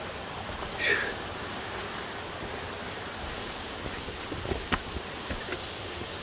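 Hiker's footsteps on a loose-rock trail, with a few scuffs and knocks of stone underfoot between about four and five and a half seconds in, over a steady rushing noise. A short hiss sounds about a second in.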